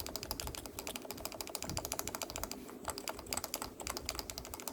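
Fast typing on a Topre Type Heaven keyboard: a quick run of key presses on its stock, unlubricated 45 g Topre electrostatic-capacitive rubber-dome switches, with a brief pause about halfway through.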